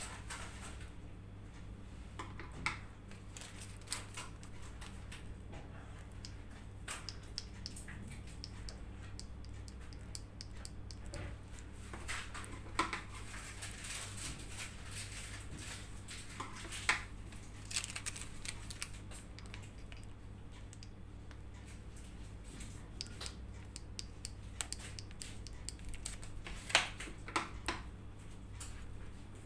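Scattered light clicks and taps of metal scissors and a flower nail being handled while buttercream roses are lifted off the nail onto a cake, over a steady low hum.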